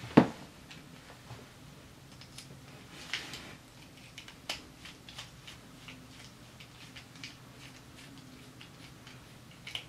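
Hand work on small plastic drone parts: scattered light clicks and ticks of 3D-printed parts and a precision screwdriver as screws are driven in, with one louder knock just after the start.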